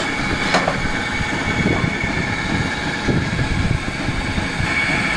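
Steady mechanical hum of running machinery with a constant high whine, a brief sharp knock about half a second in, and faint voices in the background.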